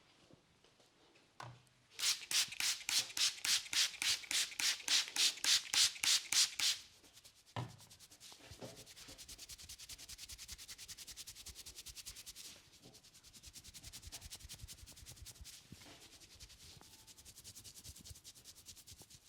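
Hands rubbing briskly through hair and over the scalp in a head massage: loud rhythmic strokes at about four or five a second for some five seconds, one dull thump, then quicker, quieter rubbing.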